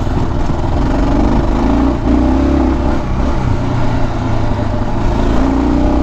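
Motorcycle engine running under throttle as the bike picks up speed on a dirt track, a steady low engine note with a haze of road and wind noise over it.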